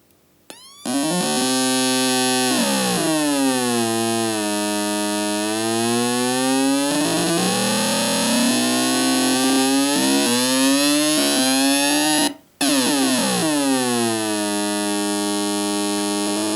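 Homemade single-RC-circuit multivibrator sound generator buzzing through a small speaker, imitating a car engine being revved. Its pitch sweeps up about a second in, dips, climbs slowly again and holds. It cuts out for a moment about twelve seconds in, then restarts high and falls back to a steady low drone.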